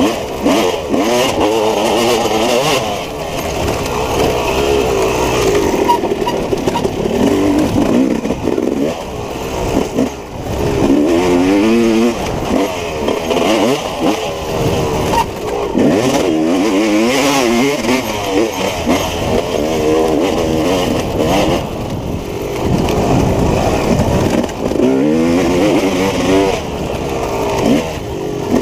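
Dirt bike engine under hard riding, its pitch rising and falling again and again as the throttle is worked on and off.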